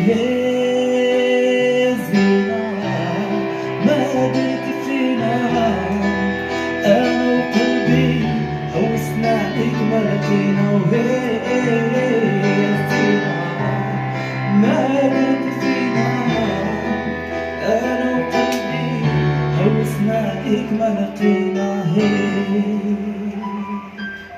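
Music: the closing passage of the song, a wavering melody over a steady bass line, fading near the end.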